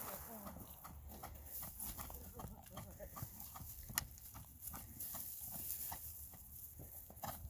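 Horse trotting on dry turf: a steady run of soft hoof thuds, with one sharp click about four seconds in.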